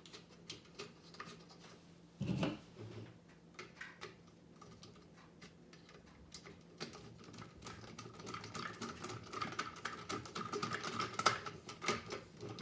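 Light clicking and tapping of small metal frame pieces and screws being handled and screwed into a cart's wheeled base, with one louder knock about two seconds in. From about halfway a dense run of rapid ticks with a faint squeak sets in as a screw is turned in.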